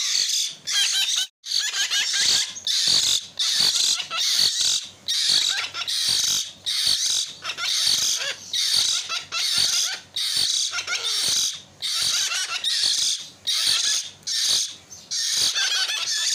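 Hill myna chicks giving harsh, rasping begging calls, repeated about twice a second without let-up.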